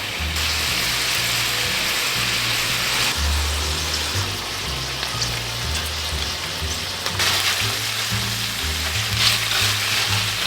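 Food sizzling in a hot frying pan. The sizzle starts just after the opening, eases off for a few seconds in the middle, then comes back strongly. Background music with a bass line plays underneath.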